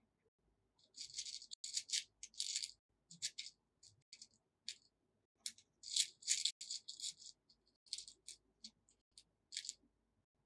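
Small plastic beads clicking and rattling against each other and a compartmented plastic bead box as fingers sift through them, in irregular short bursts.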